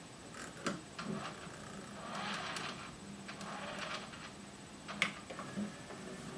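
JVC XL-MC222 200-disc CD changer working: the disc carousel whirring as it turns, with several sharp clicks from the mechanism and front door, the sharpest about five seconds in.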